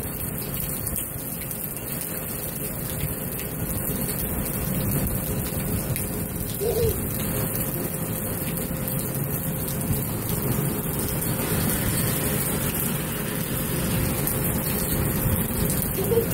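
Heavy rain falling in a steady rushing downpour, with wind rumbling on the microphone.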